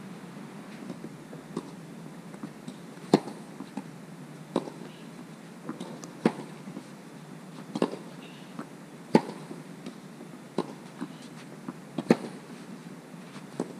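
Tennis rally: rackets hitting a tennis ball back and forth, a sharp knock about every second and a half, the loudest roughly every three seconds.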